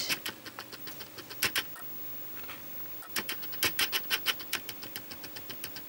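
Handling noise from a rubber-band loom bracelet and metal crochet hook being held and moved: scattered light clicks and scratches, in small clusters about a second and a half in and again from about three to four seconds.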